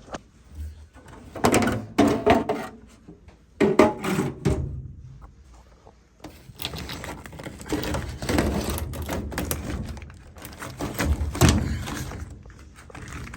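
Handling noise: a run of thunks and knocks in the first few seconds, then several seconds of uneven rustling and scraping.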